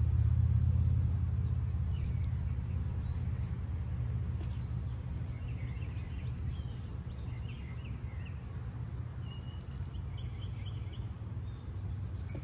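Steady low rumble, loudest in the first couple of seconds, with faint short bird chirps scattered through.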